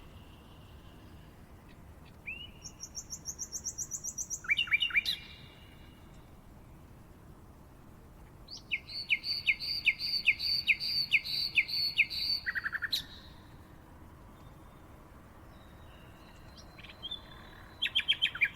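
Birds singing in bouts of fast, rapidly repeated trilled notes. A high trill starts about two seconds in, a louder rapid series runs from about nine to thirteen seconds, and another trill begins near the end, with a faint steady background hiss between bouts.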